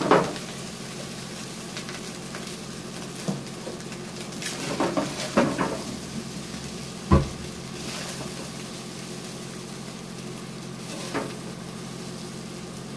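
Wooden spatula scraping and knocking against a pot as fried rice is scooped out onto a plate, a few separate knocks with the loudest about seven seconds in. Under them the hot rice sizzles steadily in the pan over a low steady hum.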